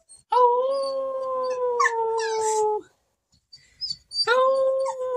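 A person and a mixed-breed dog howling together: two long, slightly falling howls with a pause of about a second and a half between them.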